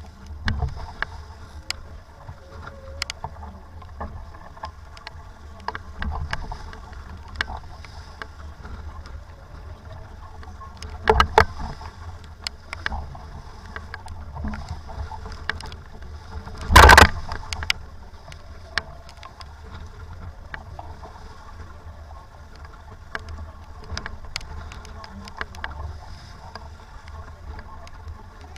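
Sailboat under way in strong wind and rain: a steady low rumble of wind with many scattered sharp ticks. There is a louder burst about eleven seconds in, and the loudest, a burst of about half a second, a little after the middle.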